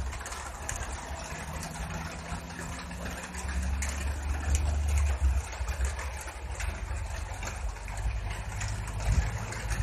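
A vehicle engine running with a low, steady rumble that swells briefly about four seconds in.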